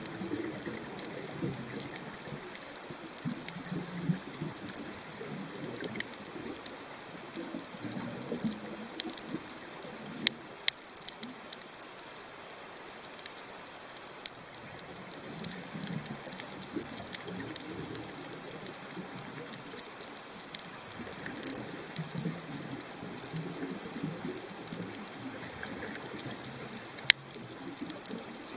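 Underwater ambience on a coral reef: an uneven low gurgling rumble of moving water that swells and fades every few seconds, with a few sharp clicks, the loudest near the end.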